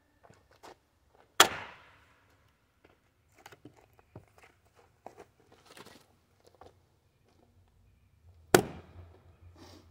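Two blows of a Fiskars X27 splitting axe into a partly sawn red oak log, about seven seconds apart, each a sharp crack with a short fading tail. Light knocks and clatter of wood pieces between the blows.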